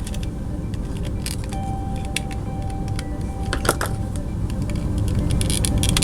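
Small scattered metallic clicks and scrapes of a pick tool working at the window of a die-cast toy bus, with a cluster of sharper clicks a little past the middle, over a steady low hum.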